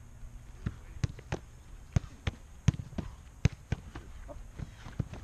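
Footballs thumping as they are kicked, bounced on the pitch and caught in goalkeeper gloves: about ten sharp thuds at uneven intervals.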